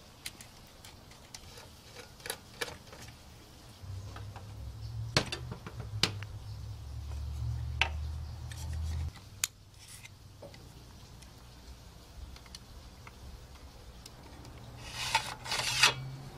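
Scattered clicks, scrapes and rubbing of metal parts as the sheet-metal chassis bracket and 400K floppy drive mechanism of a Macintosh 128K are worked loose and handled. A low rumble runs from about four to nine seconds in, and a quick cluster of clinks comes near the end.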